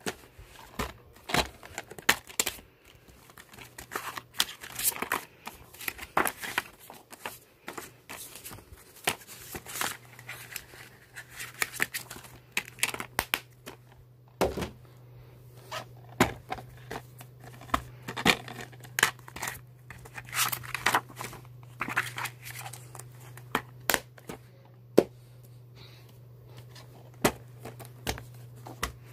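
Plastic VHS and DVD cases being handled: a steady run of irregular clicks, taps and crinkles as the cases are picked up, turned over and put down. A low steady hum comes in about nine seconds in.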